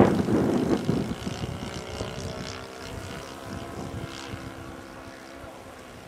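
Saito FA-62 four-stroke glow engine turning a 13x6 propeller on an RC plane in flight, running at a steady throttle. It is loudest at the start as the plane passes close, then fades as it flies away.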